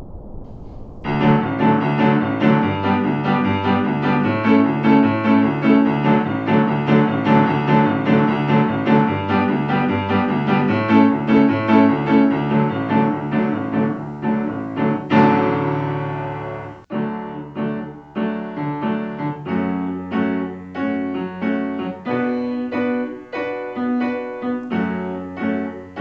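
Background piano music that starts about a second in, with notes pulsing about twice a second; after a brief break about two-thirds of the way through it carries on in a sparser pattern.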